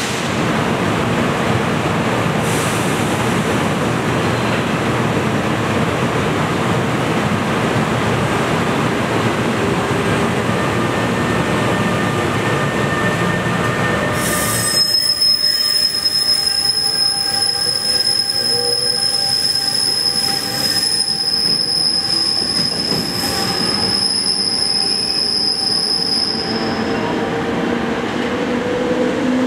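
Bombardier ALP-46A electric locomotive and Multilevel coaches moving through the station: a dense rolling rumble and hiss, changing abruptly about halfway through to a high, steady squeal of the wheels on the rails, made of several held tones that cut off near the end.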